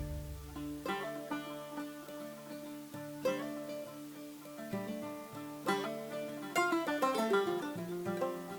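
Background music: an upbeat acoustic tune of plucked-string notes, banjo-like. A low hum dies away in the first second.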